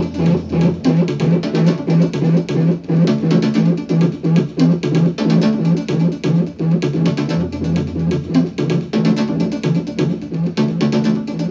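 Electronic techno track playing: a low synth bass note pulsing several times a second under fast, steady ticking percussion, with a deeper low swell near the start and again about two-thirds of the way through.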